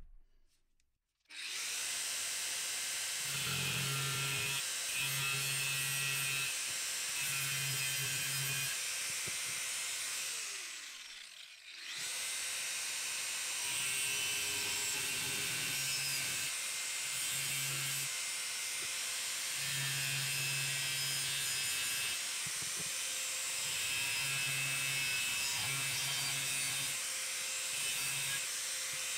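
Angle grinder cutting a steel bracket, the load rising and falling as the disc bites. It starts up about a second in, spins down with a falling whine around the middle, then starts again and keeps cutting.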